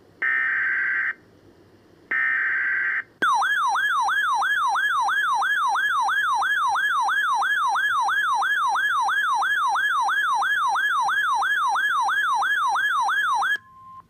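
Three roughly one-second bursts of the Emergency Alert System's SAME digital header, a buzzy data screech, announcing a flash flood warning. Then a NOAA weather radio's alert siren warbles up and down about three times a second for about ten seconds and cuts off into a brief steady tone.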